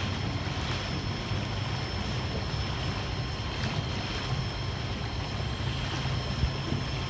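A small boat's outboard motor running steadily under way, with water rushing along the hull and wind on the microphone.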